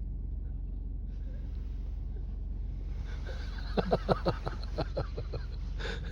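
A steady low hum, then about four seconds in a quick run of short voiced sounds: a person's stifled laughter. A short breathy puff follows near the end.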